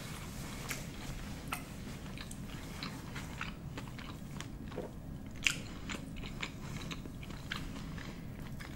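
Close-miked chewing of a mouthful of food, with soft wet mouth clicks scattered throughout and a sharper click about five and a half seconds in.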